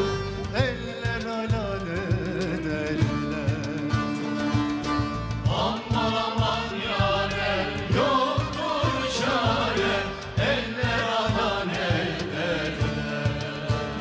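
Turkish folk song performed live: a lead singer and a backing choir of women and men sing over a folk ensemble of long-necked bağlama lutes and a hand drum.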